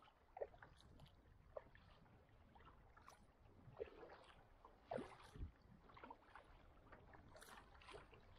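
Faint splashes and drips of a double-bladed kayak paddle dipping into the sea on alternate sides, with water trickling off the blades. A few sharper splashes stand out, the loudest about five seconds in.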